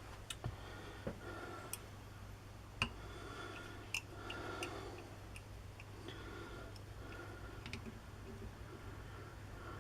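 Faint clicks and light metallic taps of small hand-drill parts being handled and fitted together during reassembly, over a steady low electrical hum.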